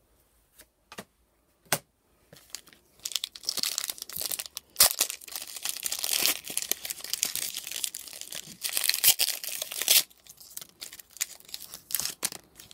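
A foil Pokémon trading-card booster pack being torn open and its crinkly wrapper handled: a dense crackling rustle for several seconds. A few light taps come before it, and a few more near the end as the cards come out.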